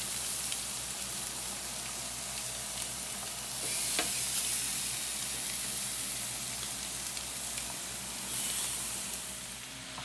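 Shrimp sizzling as they fry on a hot stovetop griddle, a steady frying hiss that swells louder about four seconds in and again near the end.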